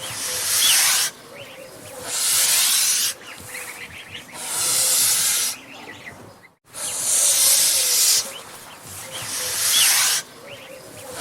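Angry goose hissing in a string of loud, harsh hisses, each about a second long and roughly two seconds apart, about five in all. Faint short calls sound in the gaps between hisses.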